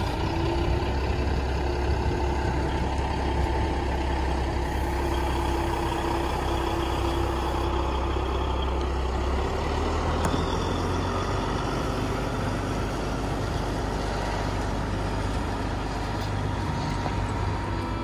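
Semi truck's diesel engine running as it pulls a lowboy trailer loaded with a combine slowly past, a steady low engine hum over road and trailer noise. The engine note changes about halfway through.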